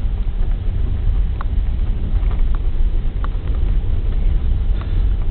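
Vehicle engine and road rumble heard from inside the cabin: a steady low rumble, with a few faint short clicks.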